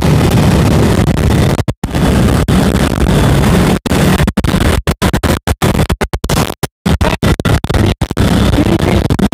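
Loud wind rumble and motorcycle engine noise picked up while riding pillion in a motorcycle convoy, with the audio cutting out to silence many times, most often around the middle.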